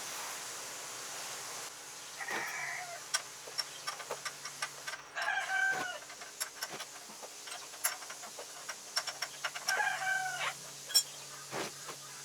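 A chicken calling three times, short pitched calls spaced a few seconds apart, among scattered sharp clicks and taps.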